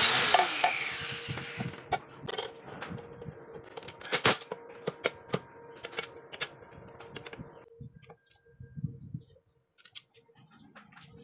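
A small power tool's motor winding down with a falling whine, followed by scattered clicks and knocks and a faint steady hum that stops about three-quarters of the way through.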